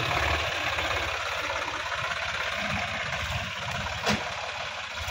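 Sonalika DI-50 RX tractor's diesel engine running steadily, with one sharp knock about four seconds in.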